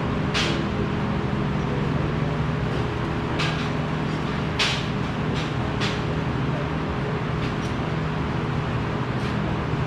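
Steady hum of workshop machinery with several short hissing bursts spread through it.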